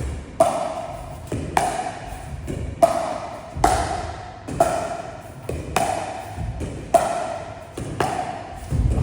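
Pickleball paddles striking a plastic pickleball back and forth in a steady rally: a sharp, ringing pock about once a second, with softer low thuds between the hits.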